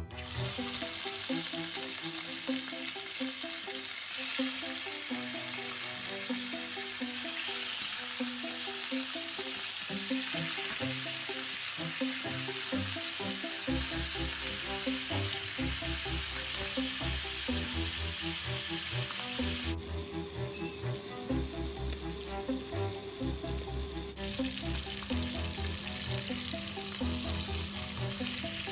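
Chicken thighs sizzling as they fry in hot olive oil in a stainless steel frying pan, a steady loud hiss that dips for a few seconds about two-thirds of the way through, with background music underneath.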